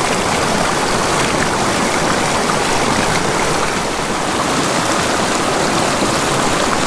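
Small mountain creek running over rocks, a steady rushing wash of water.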